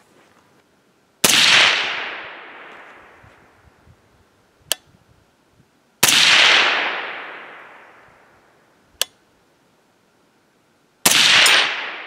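Three shots from a suppressed AR-style rifle in 300 Blackout firing supersonic 168-grain A-Max handloads, about five seconds apart, each report trailing off over two to three seconds. A short, sharp click falls between each pair of shots.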